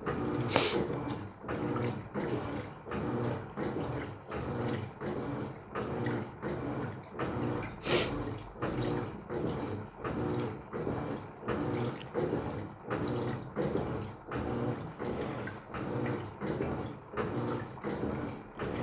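Electrolux LF75 top-loading washing machine agitating without its turbo function: the agitator swishes back and forth about one and a half times a second, sloshing the water with each stroke, with two sharper splashes or clicks, one about half a second in and one about eight seconds in.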